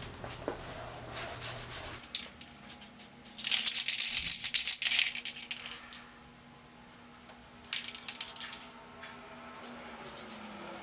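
An aerosol spray paint can being shaken, its mixing ball rattling quickly. The shaking comes in short spells, the longest and loudest in the middle.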